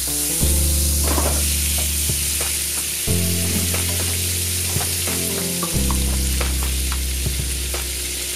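Vegan butter sizzling and spattering as it melts in a hot cast-iron skillet, pushed around with a wooden spoon at first. Low held background music notes run underneath and change about every two and a half seconds.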